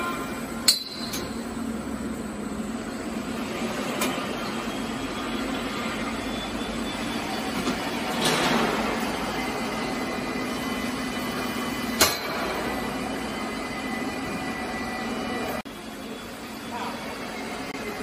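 Automatic scaffolding seam welding machine running: a steady hum, broken by two sharp metallic clacks about a second in and again near the twelve-second mark, a lighter knock around four seconds, and a swelling rush of hiss around eight to nine seconds.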